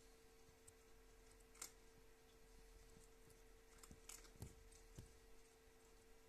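Near silence: a faint steady hum with a few soft clicks, one about a second and a half in and three more between four and five seconds in.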